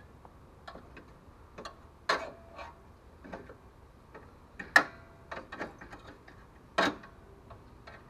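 Scattered metallic clicks and clinks of pliers gripping and working a cut brass pipe nipple loose, with three sharper clanks about two, five and seven seconds in.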